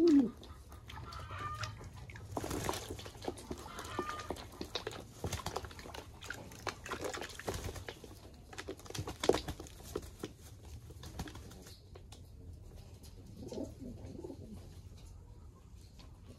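English Modena pigeons cooing, one coo at the very start and another about 13 seconds in, among irregular short splashes and flutters as the birds bathe.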